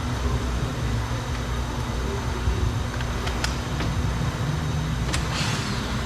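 A few light clicks and taps from hands and a tool working inside a car door, over a steady low background rumble with a faint hum.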